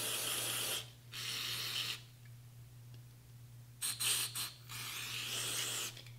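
Aerosol can of non-chlorinated brake parts cleaner sprayed through its straw onto an AR-15 bolt, hissing in bursts to flush off loosened carbon and solvent. It gives two sprays of about a second each, then after a pause of about two seconds a couple of short spurts and a final longer spray.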